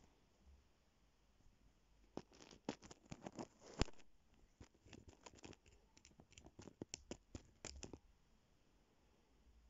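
Close-up rubbing and scratchy clicks of a cat's fur and whiskers brushing against the phone's microphone, an irregular run of sharp crackles that starts about two seconds in and stops near the eight-second mark.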